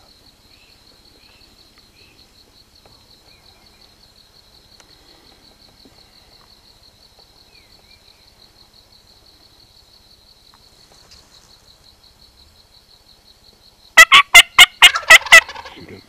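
Wild turkey tom gobbling loudly near the end: one fast rattling call of about eight notes in a second and a half. Before it there is only a faint, steady, high-pitched trill.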